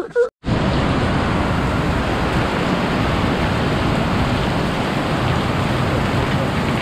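Heavy rain pouring down, a steady dense hiss that cuts in abruptly a moment in.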